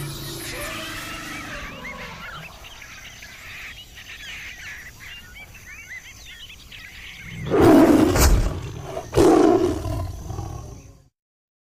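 Birds chirping and calling for several seconds. Then come two loud, sudden bursts with a low rumble, about a second and a half apart, each fading over a second or so before the sound cuts off.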